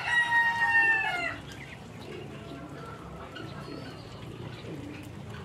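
A rooster crowing: one long call, already under way, that ends about a second in with a falling note. Faint bird calls follow.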